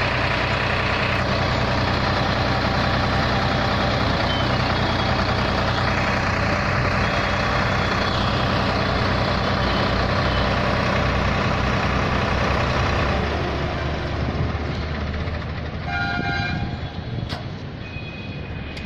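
Tractor's diesel engine running hard while working a backhoe loader, then easing off to a lower, uneven level about two-thirds of the way through. A brief beep sounds near the end.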